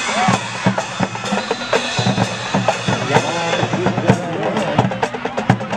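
Drum-heavy music: a steady run of bass drum and snare hits.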